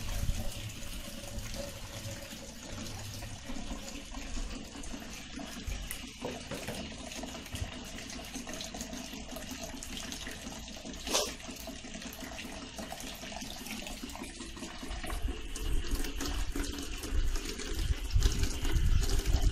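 Water running steadily from a tap into a plastic bucket while a child rinses his hands under the stream. There is a single click about eleven seconds in, and the splashing gets louder near the end.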